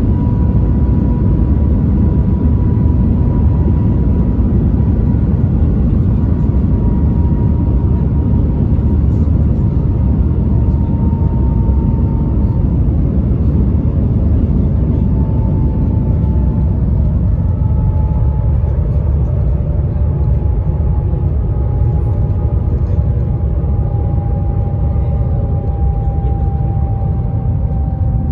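Steady low rumble of the Shanghai Maglev (Transrapid) maglev train running at speed, heard inside the passenger cabin. A faint whine sounds over it and slowly falls in pitch, and the rumble eases somewhat in the second half.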